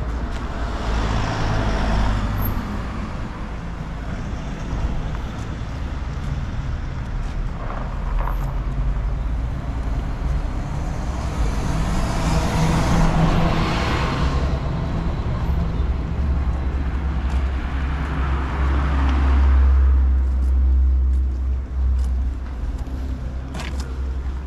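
Road traffic on a wet street: vehicles pass with swelling and fading tyre noise, and about halfway through a town bus drives past close by, its engine and tyres loudest then.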